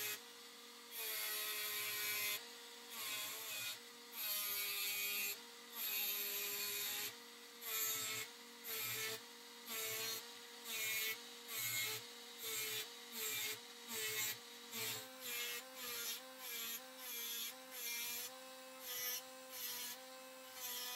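Handheld rotary tool with a small cut-off disc running with a steady whine, its disc repeatedly biting into the steel hammer head to cut decorative grooves. Each cut is a harsh burst of grinding: longer strokes in the first half, then shorter ones about twice a second.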